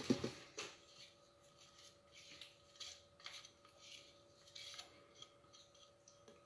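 Silicone spatula scraping the last of a liquid batter mixture of oil, milk and eggs out of a measuring jug: a string of faint, short scrapes.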